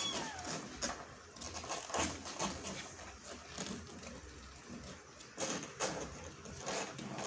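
Kitten scrabbling and moving about, making irregular scratching, rustling and light knocks, with the tail end of a short meow right at the start.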